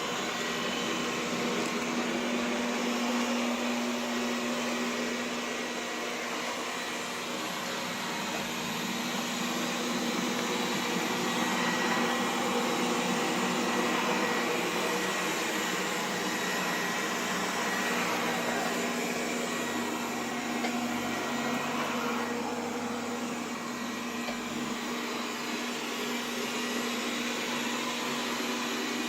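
Xiaomi robot vacuum cleaner running: a steady motor whir with an even hum, the level swelling and easing a little as it moves.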